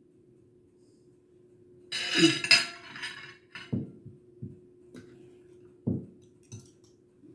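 Kitchen dishes and utensils clinking and knocking: a burst of clatter about two seconds in, then several separate knocks, over a faint steady hum.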